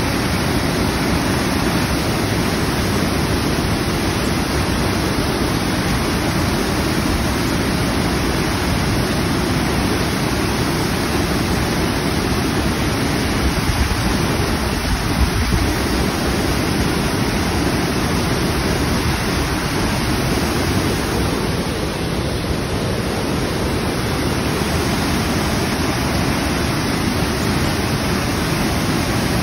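A waterfall swollen with muddy floodwater after heavy rain, pouring over a rock ledge into churning white water: a loud, steady, deep rushing noise.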